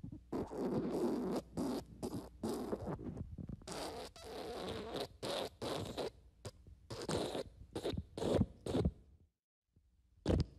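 Fart sound effect: a long run of short, rapid bursts, some drawn out longer, lasting about nine seconds, then a pause of about a second before more bursts begin near the end.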